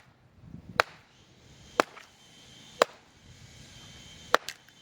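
Five sharp blows of a hand tool striking, about one a second at first, with the last two close together, of the kind made when chopping or splitting wood or driving tent pegs at a campsite.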